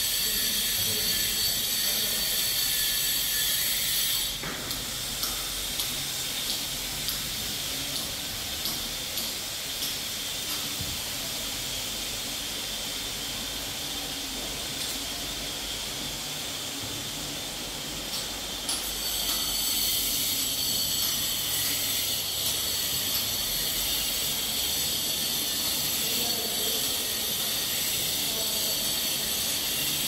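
Steady hiss with several thin high-pitched whining tones over it. For a long stretch in the middle the whine drops away, leaving a plainer hiss with faint scattered ticks and knocks.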